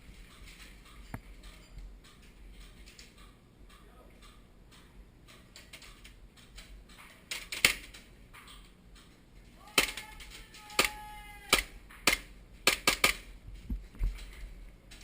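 Airsoft pistols firing: a string of sharp snapping shots, sparse and faint at first, then louder and quicker in a burst about ten to thirteen seconds in.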